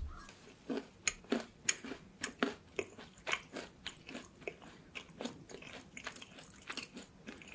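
Crunchy pecan and chocolate-chip peanut butter cookie being bitten and chewed close to the microphone: a run of sharp, irregular crunches, two or three a second.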